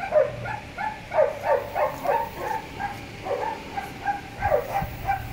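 A dog whining and yelping over and over, in short falling cries at about three a second.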